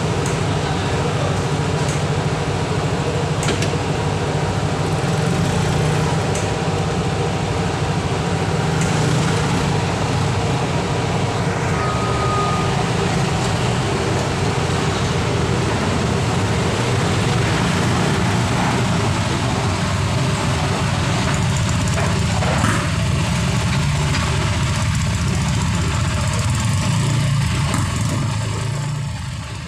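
Steady drone of idling engines on a ferry's enclosed vehicle deck: motorcycles running in line together with the ship's own engines. It fades out near the end.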